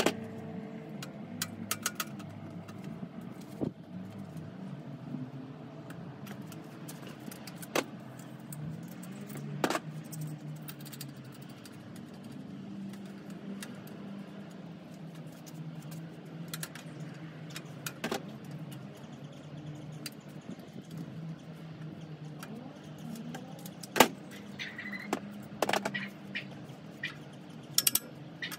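Metal tools clicking and clinking against bicycle parts as the crankset and bottom bracket are taken off, scattered sharp knocks over a steady low rumble.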